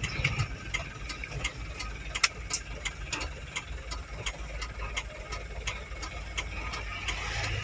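Diesel truck engine running steadily under way, heard from inside the cab as a low rumble, with a quick regular ticking of about three clicks a second over it.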